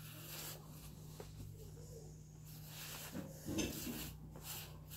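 Paintbrush strokes scrubbing back and forth on paper, a run of short scratchy rubs over a steady low hum, with a soft bump about three and a half seconds in.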